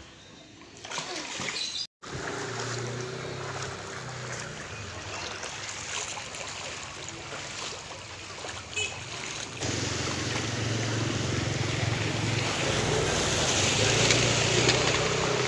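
Motorcycle engine running while riding through floodwater, with water swishing and splashing around the wheels; it gets louder about ten seconds in.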